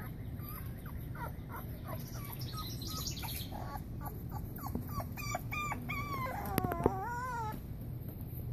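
Boxer puppies whimpering and yipping in short, high squeaks, two or three a second, rising into a longer wavering whine near the end. A couple of sharp clicks come during the whine.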